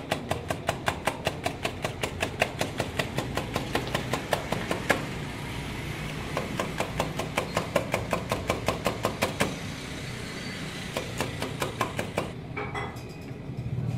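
A whisk beating egg in a steel bowl: quick, even clicking strokes against the bowl, about four or five a second, with a short break about five seconds in, stopping near ten seconds after a few last strokes. A low steady hum runs underneath.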